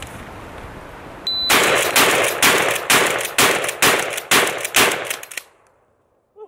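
A shot-timer app beeps once, then a Remington 870 pump-action shotgun fires eight shots as fast as it can be pumped, about two a second, the last about a second before the end.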